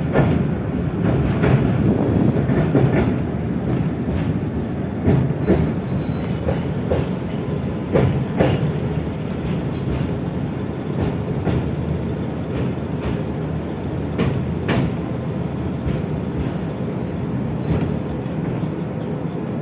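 Tatra T3SU tram running along the track, heard from inside the car: a steady rumble of wheels on rails, with sharp clacks and knocks now and then, most of them in the first half.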